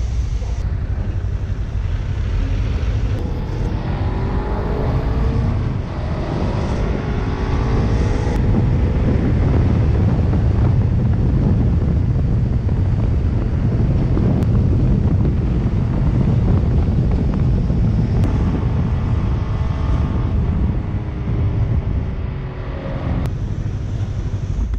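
Motorcycle engine running under way, with heavy wind noise on a helmet-mounted microphone; the engine pitch climbs a few times as the bike accelerates through the gears.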